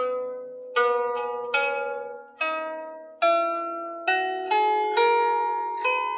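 Lyre harp being plucked, playing a slow melody of single notes, each ringing on and overlapping the next as it fades.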